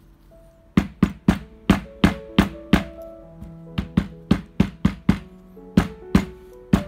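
Rubber mallet tapping a braided cord knot against the table over and over, about three sharp knocks a second at an uneven pace, starting about a second in. Background music plays underneath.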